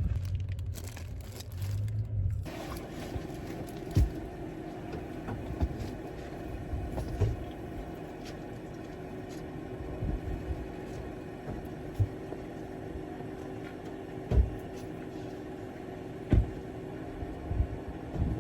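A vehicle's steady running hum, changing abruptly about two and a half seconds in, with a few short soft thumps scattered through it.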